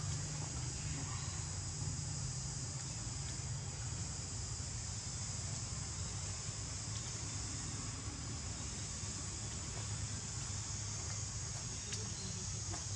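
Insects droning steadily and high-pitched in the background, with a steady low rumble underneath.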